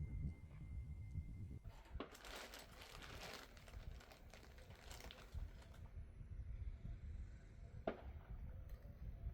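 Faint rustling and crinkling handling noise with two sharp clicks, over a low steady rumble.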